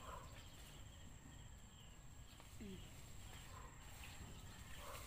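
Near silence: faint outdoor garden ambience with a thin steady high tone and a few faint distant voice sounds.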